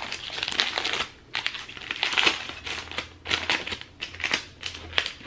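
Paper wrapping around a book crinkling and rustling in irregular bursts as it is handled and pulled at to open it, with a short pause about a second in.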